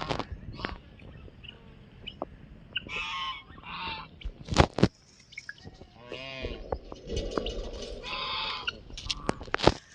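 White call duck quacking in several short bouts of loud, honking quacks. A few sharp knocks or clicks cut in between the calls.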